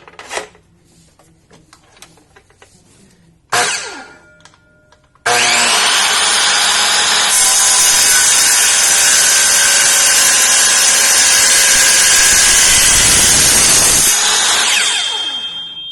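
Kobalt 7-1/4 inch miter saw with a carbide-tipped metal-cutting blade started up about five seconds in, running loud and cutting through steel stock for several seconds, then released and winding down with a falling whine near the end. A few clicks and a short burst of noise come before it starts.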